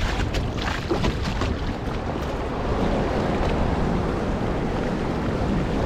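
Wind buffeting the microphone over open sea, with waves lapping against a fishing kayak's hull. There are a few short clicks in the first second and a half.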